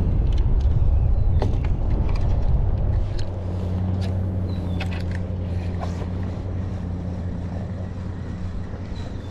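Wind rumbling on the microphone with a few light clicks. From about three seconds in, a steady low motor hum takes over.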